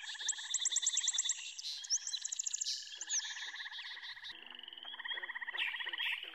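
Chorus of rapid pulsed trilling calls, with quick high chirps over it. The trills thin out about four seconds in, when a low steady hum comes in, then pick up again near the end.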